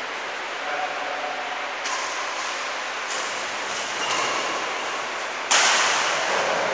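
Badminton rally in an echoing hall: rackets strike the shuttlecock three times, about a second apart, over a steady background hiss. A sudden loud burst of noise near the end comes as the rally ends.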